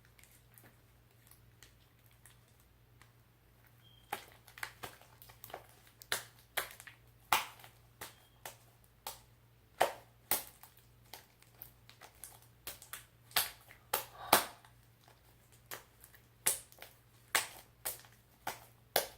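Homemade glue-and-contact-solution slime being squeezed and kneaded by hand, giving irregular sticky pops and clicks a few times a second, starting about four seconds in.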